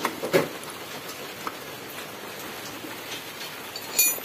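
Diesel injector nozzle being tested on a hand-lever pop tester after a shim was added under its spring: a steady hiss with a couple of light clicks, then a short buzzing burst near the end.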